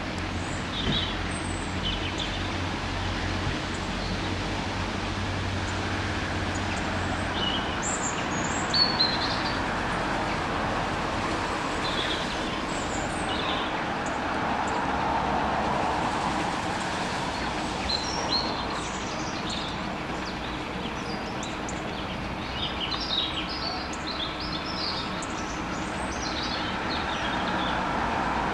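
Small birds chirping in short, scattered calls, more often in the second half, over a steady background rumble.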